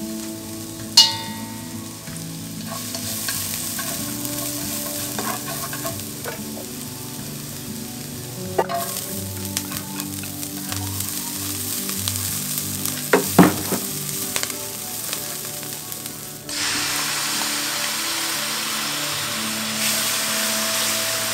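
Ginger and chili sizzling in oil in a nonstick frying pan, with a few sharp clicks along the way. The sizzle grows suddenly louder about three-quarters of the way through.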